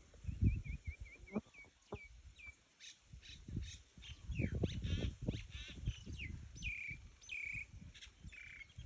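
A bird chirping: a quick run of short high notes, then trills and several longer down-slurred calls, over low rumbling noise.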